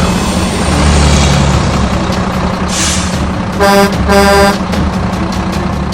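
Truck engine running steadily, with two short horn honks a little past halfway.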